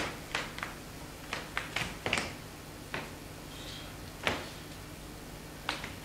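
About ten sharp clicks and snaps at uneven intervals, the loudest right at the start and a few with a short ring of room echo, over a faint steady low hum.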